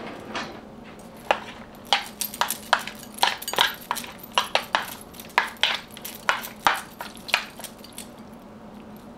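Metal spoons clinking and scraping against a plastic bowl of mashed sweet potatoes: a quick, irregular run of sharp clicks that stops near the end. A faint steady hum runs underneath.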